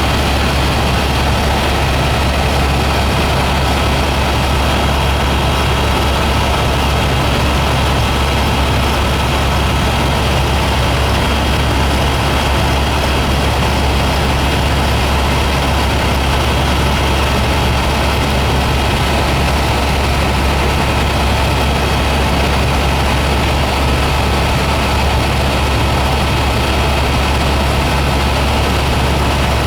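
Helicopter in flight, heard from on board: a loud, steady deep drone with thin, constant whines above it, unchanging throughout.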